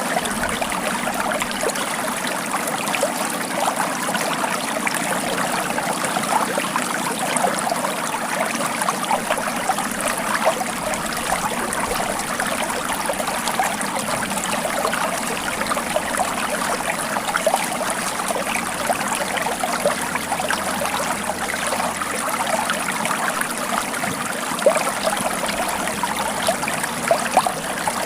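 Stream water flowing and trickling over stones, a steady babbling rush with no pauses.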